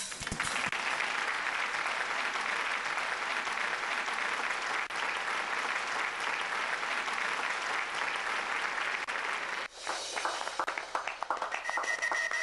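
A crowd applauding steadily for about ten seconds. It breaks off abruptly and thins to a few scattered separate claps near the end.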